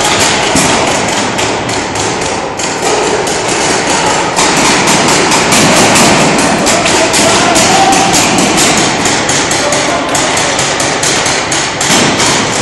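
Paintball markers firing in rapid volleys in a large indoor hall: a dense string of sharp pops, many a second, with hardly a break.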